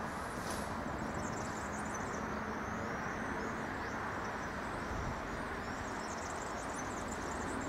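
Steady outdoor background rumble with small birds chirping high above it in short twittering phrases, most around the first few seconds and again near the end.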